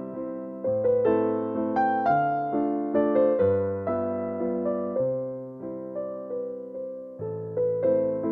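Background music: solo piano playing slow chords, each struck note ringing and fading.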